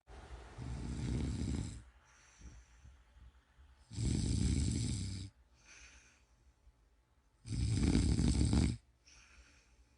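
A person snoring: three loud snores about three and a half seconds apart, each lasting over a second, with softer breathing between them.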